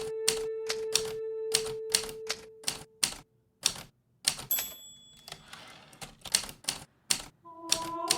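Hermes Baby portable typewriter keys striking in an uneven run of keystrokes, with a short pause about three seconds in. A soft held music tone fades out about three seconds in, and music comes back near the end.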